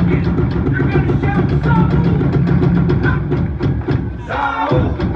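A group of large hand-played ceremonial drums beating a fast, steady rhythm together. The deep drumming drops out briefly about four seconds in, then comes back.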